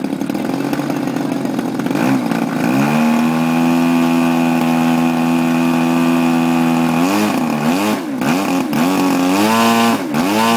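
Petrol two-stroke engine of a giant-scale radio-control aerobatic airplane on a ground run-up: running roughly at low speed, throttled up about two seconds in to a steady high rpm held for several seconds, then cut back and blipped up and down several times before revving up again at the end.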